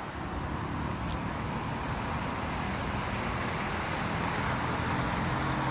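Steady outdoor background noise, a low rumble with hiss, slowly getting a little louder.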